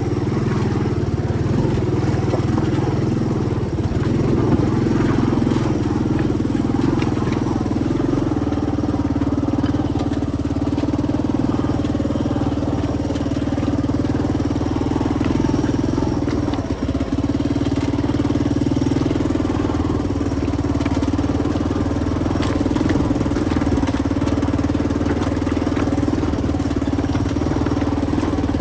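An engine running at a steady speed, a constant drone that holds the same pitch throughout, with a momentary drop in level about two-thirds of the way through.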